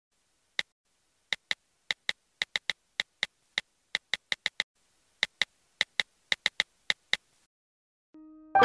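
Smartphone keyboard tap clicks: about two dozen short, crisp clicks in an uneven typing rhythm as a text message is typed, with dead silence between them. Right at the end a soft piano note comes in.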